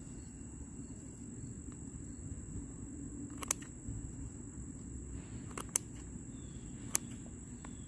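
Scissors snipping through the firm base of a chicken of the woods mushroom: a few short, sharp clicks scattered over several seconds. Under them runs a steady high-pitched buzz of crickets.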